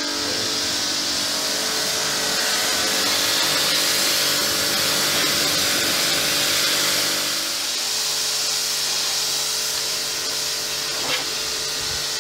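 Pressure washer running steadily, a motor hum under the hiss of the water jet spraying the boat hull. The hum shifts in pitch a little over halfway through.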